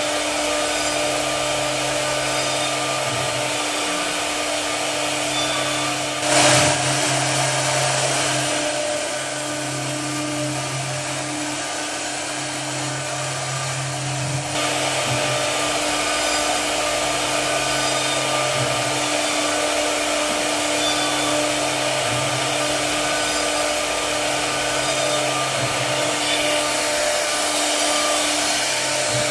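CNC rotary wood router with its high-speed spindle running and carving a wooden pillar blank on the lathe-style axis: a steady whine and rush. A low hum under it breaks off and resumes every few seconds, and a brief louder burst comes about six seconds in.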